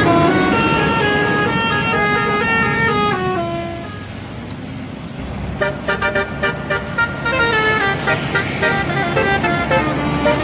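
Indonesian bus 'telolet' horn, a multi-tone musical air horn, playing a tune of held notes stepping down in pitch. It fades about four seconds in, then comes back with a quick run of short staccato toots and carries on with the tune.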